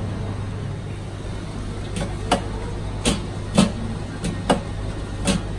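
Metal ice cream scoop clicking and knocking against the ice cream tubs, about five sharp clicks starting about two seconds in, over a steady low hum.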